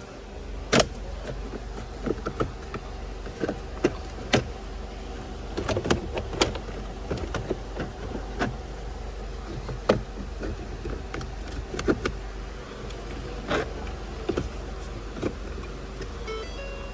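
Plastic dash trim and the instrument cluster clicking, knocking and rattling as they are pried and pulled loose by hand, in irregular sharp strokes over a steady low hum.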